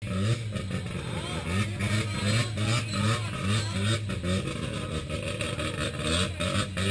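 Mazda RX-7 FC3S's 13B two-rotor rotary engine revving loudly over and over, its pitch rising and falling in quick repeated blips.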